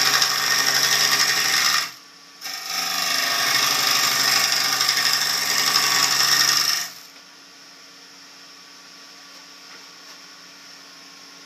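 Turning gouge cutting into a spinning maple crotch blank on a wood lathe: a loud scraping cut for about two seconds, a brief pause, then a longer cut of about four and a half seconds. After about seven seconds the cutting stops and only a quieter steady hum of the running lathe remains.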